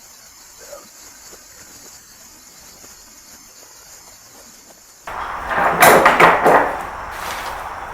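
Insects, crickets by their sound, chirring in a steady high band, until about five seconds in the sound cuts abruptly to a loud clattering noise with several sharp knocks that lasts about a second and a half and then settles into a lower steady rush.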